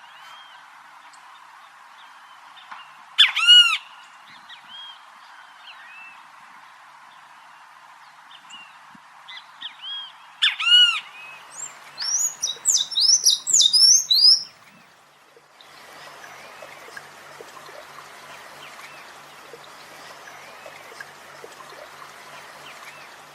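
Songbirds singing in a chorus of chirps and tweets. Two loud harsh calls come about three seconds in and again around ten seconds, followed by a quick run of high chirps. About fifteen seconds in, the sound changes to a busier, fainter chorus of many small chirps.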